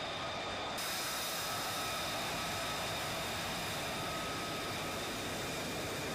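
F-35B Lightning II's F135 turbofan running at low power while the jet taxis: a steady rushing hiss with a thin high whine in it. The hiss turns brighter and sharper about a second in.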